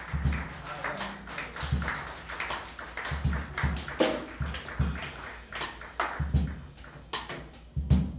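Live jazz band playing, with the drum kit to the fore: regular bass drum thumps and sharp snare and cymbal hits over a low bass line.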